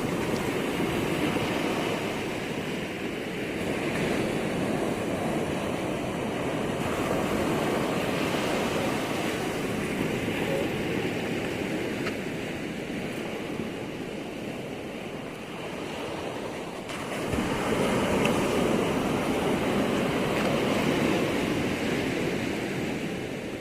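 Ocean waves surging and washing onto the shore at high tide: a continuous rush that swells and eases, loudest about two-thirds of the way through.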